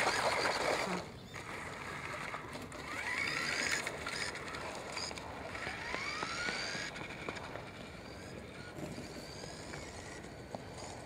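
Electric RC cars racing: their motors whine, rising in pitch several times as they speed up. A louder rush of noise at the start drops away about a second in.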